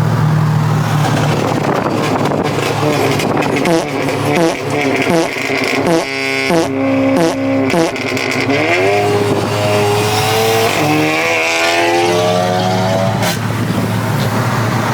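Car engine revving hard on the road: its pitch climbs and drops several times in quick succession, then one long rising pull through a gear, cut off sharply about thirteen seconds in. A steady low engine drone runs underneath.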